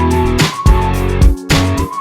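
Background music with a steady beat, a bass line and a sliding lead melody.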